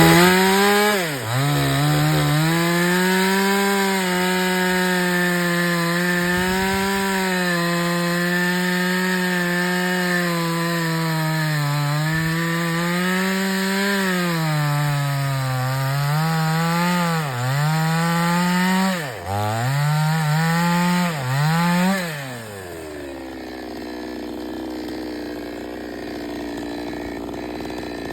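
Two-stroke chainsaw running at high revs while cutting through a fallen plum tree's main limb, its engine speed sagging and recovering several times. After about twenty seconds it drops back to idle.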